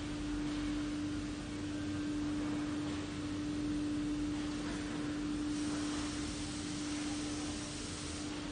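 A steady hum on one unchanging tone, over an even background hiss.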